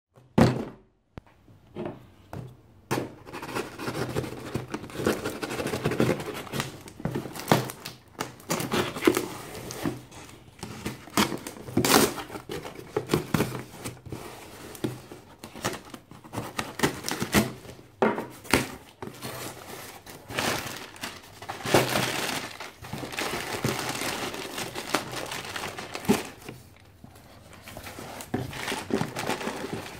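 A taped cardboard shipping box opened by hand: packing tape tearing, cardboard and plastic packing rustling and crinkling in irregular bursts, with occasional sharp knocks and clicks.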